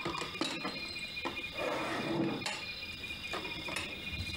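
Steady high chirring of crickets, with a few light clicks and clinks of crockery being handled.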